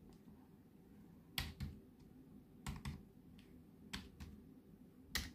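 Computer keyboard keys pressed one at a time while digits are entered into the BIOS clock: four separate keystrokes about a second and a quarter apart, each a quick double click.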